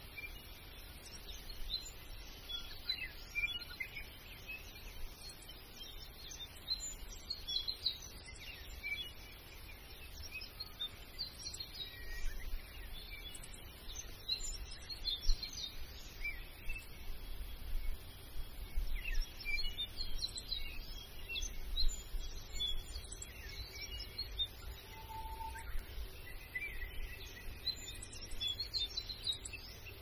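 Small birds chirping and twittering: many short, high calls scattered throughout, with one brief lower whistle near the end, over a low background rumble.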